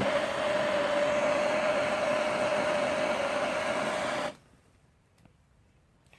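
Propane torch lit with a sharp click and burning with a steady hiss carrying a single clear tone, then shut off abruptly after about four seconds.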